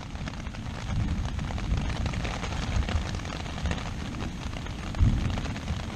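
Thunder rumbling from an approaching thunderstorm, with a louder low boom about five seconds in, over a steady patter of rain.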